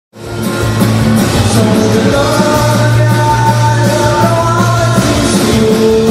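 Rock music with a steady beat, rising quickly from silence at the very start.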